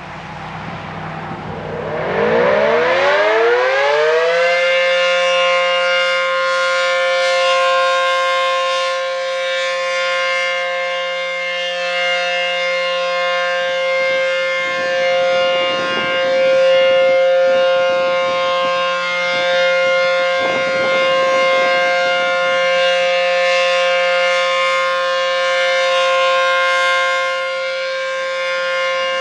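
ACA P-15 storm siren starting its test activation: it winds up from a low pitch over about four seconds, then holds one steady tone that swells slightly in loudness.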